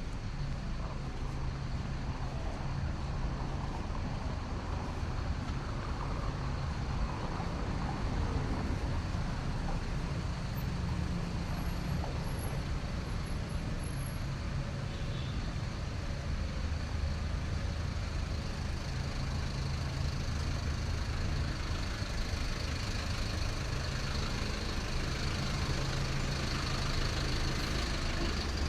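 City street traffic, with a large vehicle's engine running steadily close by.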